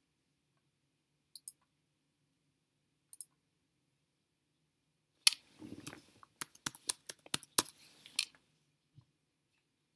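Silence broken by two faint ticks, then, about halfway through, some three seconds of rapid sharp clicks and knocks that stop abruptly.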